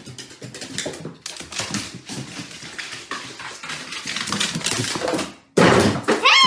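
Rapid clicking and tapping of a small dog's claws and paws, with footsteps, on hardwood stairs as it climbs. Near the end comes a loud, noisy burst with a short falling cry.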